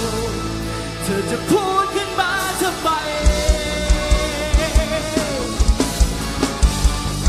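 Live rock band playing: a voice singing over bass guitar and drum kit, with the kick drum beating about twice a second from about three seconds in.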